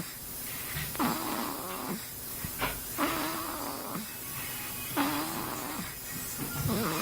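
Rhythmic snoring, one rasping snore about every two seconds.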